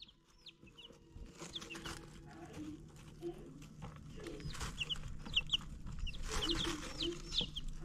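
Baby chicks peeping: many short, high chirps that fall in pitch, often in quick pairs, over a faint steady low hum, growing gradually louder.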